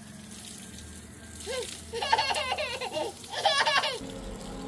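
A young child laughing and giggling in two short bursts, the first starting about a second and a half in and the second near three and a half seconds, cutting off abruptly at about four seconds.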